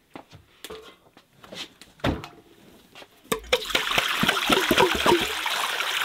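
A few faint soft knocks, then about three seconds in water starts pouring from a glass over raw whole chickens in a metal basin, splashing steadily as the birds are rinsed.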